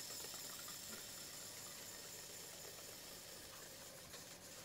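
Faint, steady hiss with a thin, high, steady whine in it: background noise between the narration lines.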